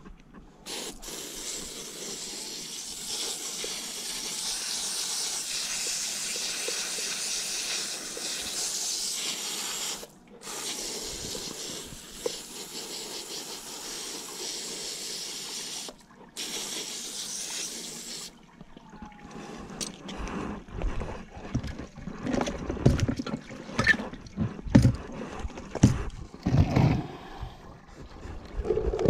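Hose spray nozzle spraying water onto a softshell turtle's shell, a steady hiss that stops briefly twice when the trigger is let go. About twenty seconds in the spray gives way to a run of irregular knocks and thumps.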